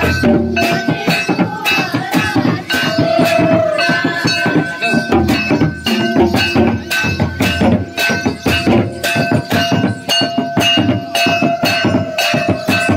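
Santali Baha dance music: drums struck in a quick, steady rhythm with voices singing a wavering melody over them.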